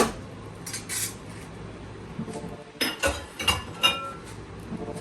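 Kitchen clatter of a utensil clinking against cookware: a couple of knocks about a second in, then a quick run of ringing clinks around three to four seconds in.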